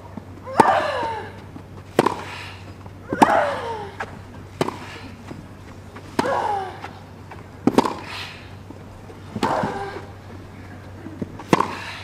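Tennis rally on a grass court: racquets strike the ball about every one and a half seconds. Every other stroke, from the same player, comes with a loud falling shriek.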